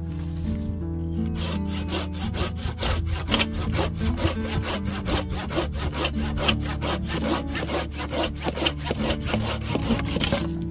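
Corona hand pruning saw cutting through a dead log, in quick, even back-and-forth strokes, about three to four a second, starting about a second in. Background music plays underneath.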